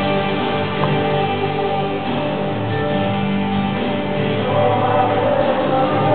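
Christian worship song with singing voices over instruments, playing steadily as dance music.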